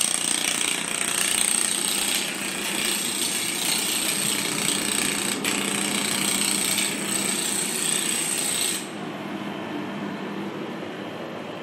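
YAG laser welding machine firing, a rapid rattling buzz of laser pulses over a steady high whine. The sound drops to a lower level about nine seconds in.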